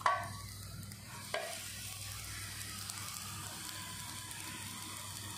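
Oiled wheat chapati sizzling steadily on a hot tawa just after being turned over with a flat spatula. The spatula clicks against the griddle at the start, and there is a second light knock about a second later.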